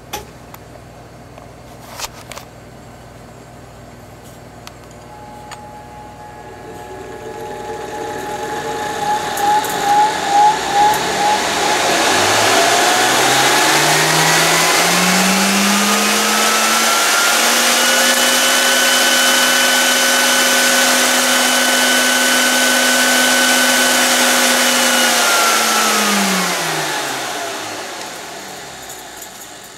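Airway Model 55A vacuum cleaner motor powered up on a Variac: after a couple of clicks near the start, it spins up with a rising whine that pulses briefly on the way up. It runs steady and loud at full speed for several seconds, then winds down with a falling whine as the power comes off.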